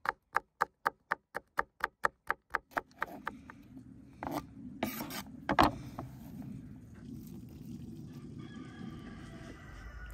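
Kitchen knife slicing a green pepper on a wooden cutting board: about a dozen quick, even chops, roughly four a second, through the first three seconds, then a few louder knocks and scrapes as the sliced rings are pushed together. A chicken calls near the end.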